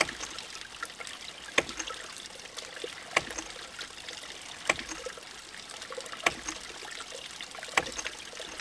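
Hydraulic ram pump cycling: its waste valve, packed between bags of fiberglass insulation, clicks shut about every second and a half, over trickling creek water.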